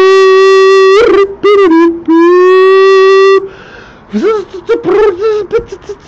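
A person's voice making long, loud, buzzing held tones in imitation of bird calls. One steady note is held, then a wavering warble, then a second long held note. After a short drop, faster choppy chattering sounds follow from about four seconds in.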